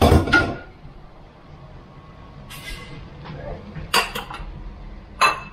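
Cookware and utensils clattering in a kitchen: a loud clatter at the start, then three more sharp knocks spread over the next few seconds.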